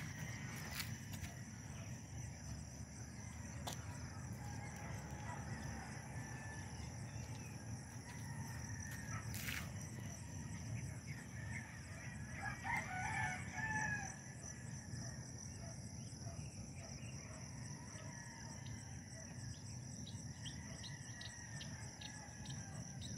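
A rooster crowing once, loudest about halfway through, with fainter fowl calls around it over a steady outdoor background.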